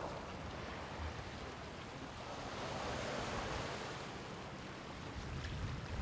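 Sea waves washing onto the beach, one wave swelling up and subsiding about halfway through, with wind starting to rumble on the microphone near the end.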